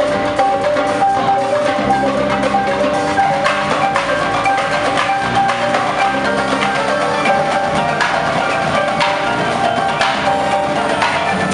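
Indoor marching percussion ensemble playing: marimbas and other mallet keyboards carry pitched melodic lines over marching snare, tenor and bass drums.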